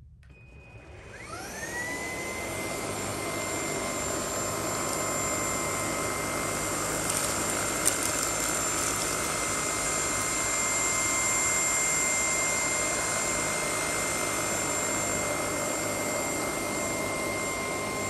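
MOOSOO U19 cordless stick vacuum's brushless motor spinning up with a rising whine about a second in, then running at a steady high whine with air rushing as it sucks crumbs off carpet. A few faint clicks about halfway through, as debris is pulled in.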